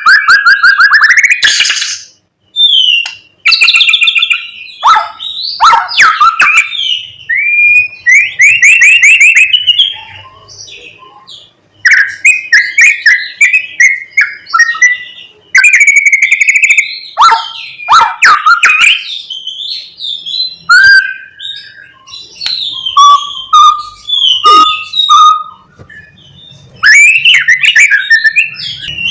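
White-rumped shama (murai batu) singing loudly: a fast, varied string of clear whistles, gliding notes and rapid trills in short phrases. It is in full 'gacor' song, packed with phrases imitated from other birds.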